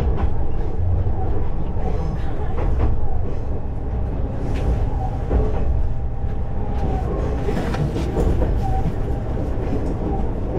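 KiHa 20-series diesel railcar running, heard from inside the cabin: a steady low rumble of engine and wheels on rail, with a few clicks and brief thin squeals from the wheels or brakes in the second half.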